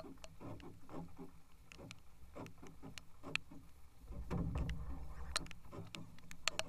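Irregular clicks and taps of handling in a small aluminium boat while a caught catfish is brought aboard, with a low rumbling from about four seconds in.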